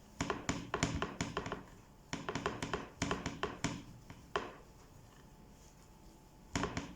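Quick runs of taps and clicks of a utensil against a cooking pan as chunks of meat and vegetables are stirred together, with pauses between the runs.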